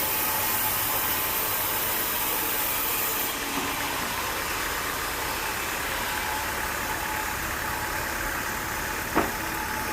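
A machine engine running steadily. A high hiss fades out about three seconds in, and there is a single sharp click near the end.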